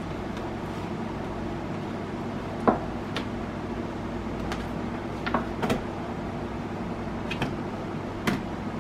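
Light kitchen handling sounds as raw steaks are seasoned and shifted around in a metal baking pan: about half a dozen brief clicks and taps from the plastic seasoning shaker and the meat against the pan, over a steady background hum.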